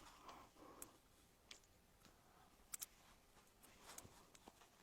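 Near silence: quiet room tone with a few faint clicks, two close together near the middle.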